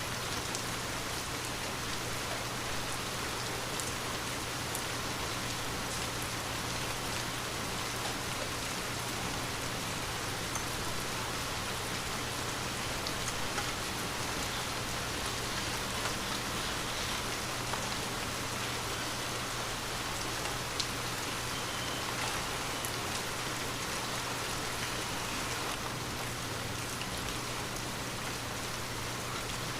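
Light rain falling steadily, a continuous hiss of drops with scattered individual drop ticks.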